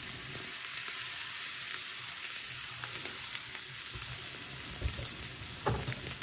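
Basmati rice frying in hot oil in a pan: a steady sizzle with small crackles, and a few low knocks about five seconds in.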